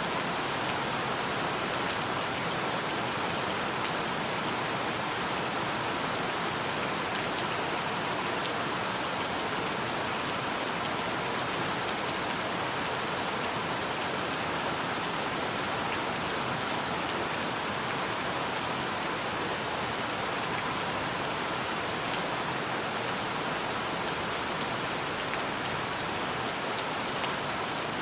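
Steady rain: an even hiss of rainfall, with a few single drops ticking now and then.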